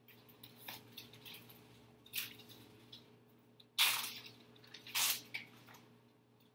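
Sheets of paper rustling and shuffling as they are handled, in a few short bursts, the loudest about four seconds in.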